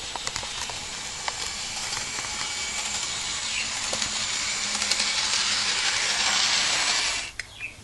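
Bachmann Edward model locomotive running on its plastic track: a steady whirring hiss of the electric motor and wheels, with a few small clicks, growing louder as it nears and cutting off suddenly about seven seconds in.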